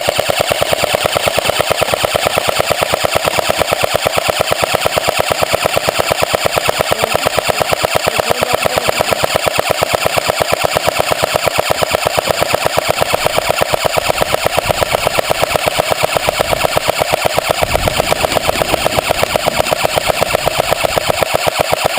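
Airsoft gun firing on full auto in one long unbroken burst: a rapid, even train of sharp shots.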